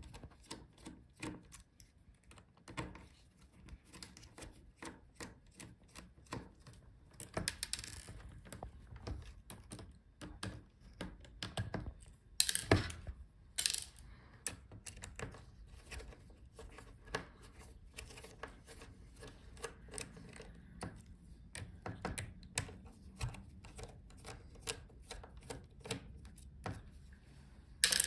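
Light clicks and taps of a small screwdriver turning the metal hinge screws of a laptop, with a couple of sharper knocks about twelve and a half and thirteen and a half seconds in.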